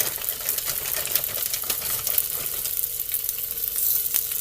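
Frozen chicken potstickers frying in oil in a hot skillet, a steady dense sizzle and crackle.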